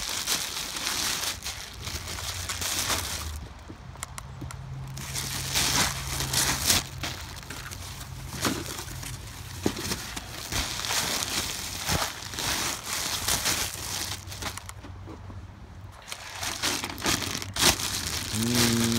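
Plastic packaging crinkling and rustling as a bag and plastic wrap are handled and pulled about, in stretches broken by two short pauses.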